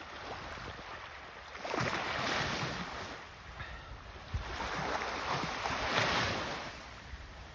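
Small waves breaking and washing up the beach in two swells of surf, with wind buffeting the microphone in low thumps.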